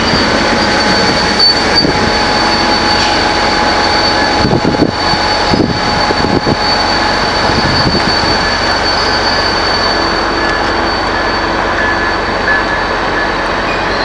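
Train passing close by: loud, steady rail noise with a thin high-pitched whine held over it.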